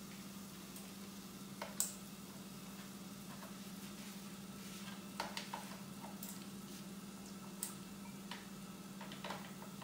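Chicken gilafi kebabs frying on low heat: a faint sizzle with scattered, irregular pops and crackles of spitting oil, over a steady low hum.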